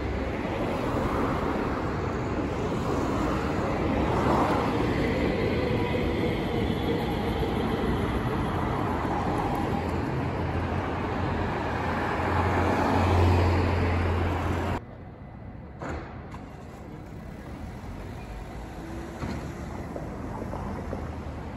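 Train running: a steady rumbling noise with a low hum that swells louder, then cuts off abruptly about two-thirds of the way through, leaving a quieter background.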